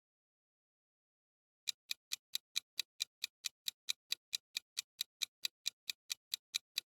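Clock-ticking sound effect of a quiz countdown timer: quick, even ticks, about four to five a second, starting a little under two seconds in.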